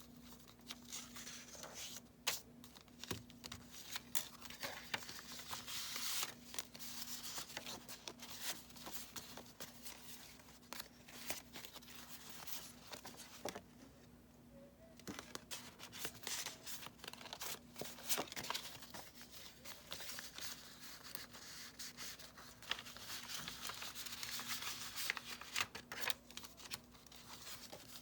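Pages of a bound junk journal made of mixed papers (book pages, coffee-dyed paper) being turned and handled: irregular paper rustling and crinkling with scattered sharp ticks, and a brief lull about halfway through.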